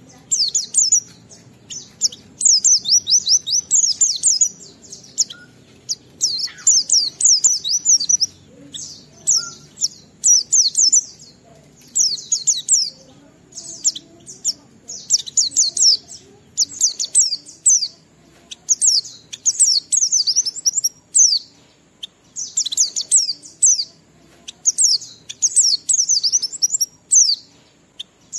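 A white-eye (pleci) singing in its full, energetic 'ngalas' song: phrases of a second or two of rapid, high, sweeping chirps, repeated with short pauses.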